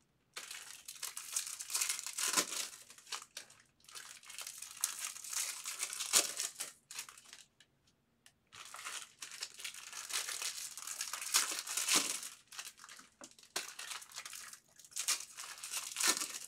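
Baseball card pack wrappers crinkling and tearing as packs are ripped open and handled by hand, in several bursts with short pauses between them.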